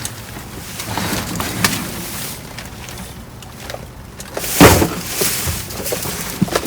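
Rummaging through trash in a dumpster: items and bags shifting with scattered knocks and rustling, and one loud thump about four and a half seconds in.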